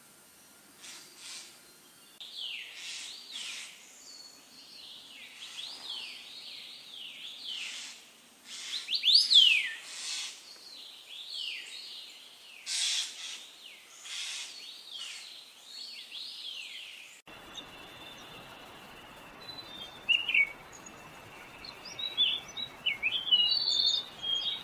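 Small birds chirping and calling in quick, sweeping high-pitched phrases, loudest about 9 seconds in. About 17 seconds in the sound cuts to a different recording with steady background hiss and fewer, scattered chirps.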